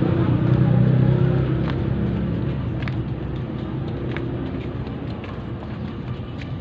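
Low rumble of a motor vehicle's engine, loudest at the start and fading away over the next few seconds, with light taps about once a second.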